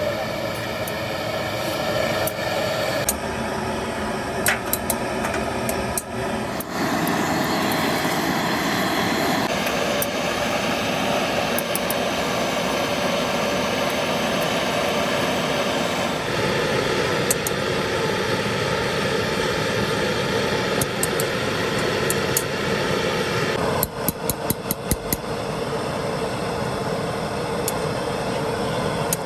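A machine running steadily with a hum of several tones whose pitch shifts a few times, broken by occasional knocks and a quick run of taps near the end.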